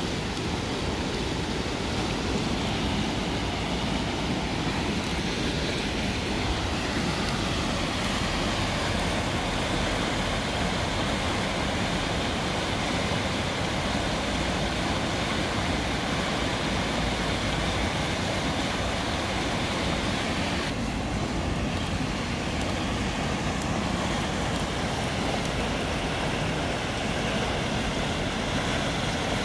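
Steady rushing of a river in flood: fast, muddy water breaking into white water over a drop in the channel.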